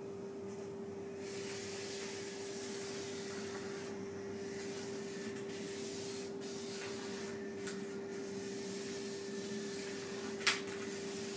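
Charcoal scraping and rubbing across a large sheet of paper as hands and body slide over it, a soft uneven hiss, over a steady hum. A short sharp tick sounds near the end.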